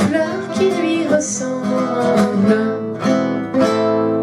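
Two acoustic guitars, one a nylon-string classical guitar, strumming the instrumental close of the song in a rumba rhythm. A final strummed chord near the end is left ringing.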